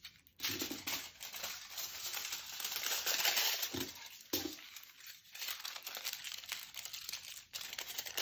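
Aluminium foil crinkling and crumpling in the hands as pieces are torn off the sheet and squeezed around a small foil figure. It is densest about three seconds in.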